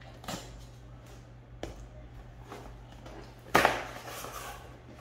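A subscription box being opened and handled by hand: a couple of light knocks, then a sudden, louder scraping rustle about three and a half seconds in that fades over about a second.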